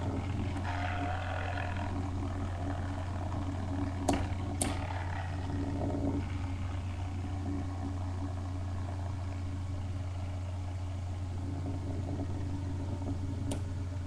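Two metal Beyblade spinning tops, Lightning L-Drago and Storm Aquario, whirring as they spin against each other in a stadium, with sharp clacks as they collide about four seconds in and again near the end. A steady low hum runs underneath.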